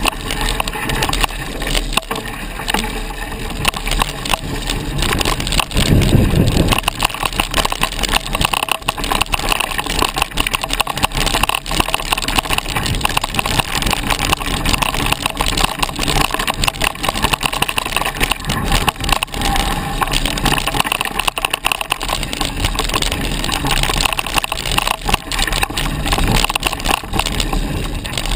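Wind rushing over the camera microphone and the rattle of a mountain bike riding fast over a rough dirt trail, with many small clicks and knocks from bumps and roots. A louder low rumble comes about six seconds in.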